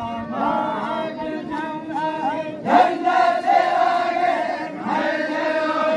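Men of a Zikri chogan dance chanting together in chorus, several voices holding long notes. The chant swells louder about two and a half seconds in.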